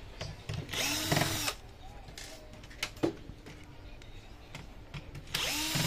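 Electric screwdriver run in two short bursts, about a second in and again near the end, its motor pitch rising and falling each time. A single sharp click falls between them.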